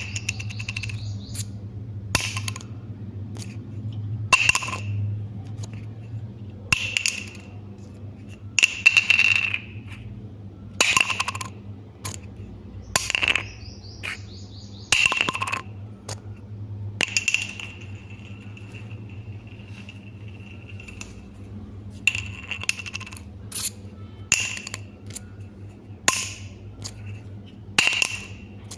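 Plastic bottle cap being flipped and landing on a hard surface again and again, about every one to two seconds: each sharp click is followed by a short ringing rattle as the cap settles, once ringing on for several seconds. A steady low hum sits underneath.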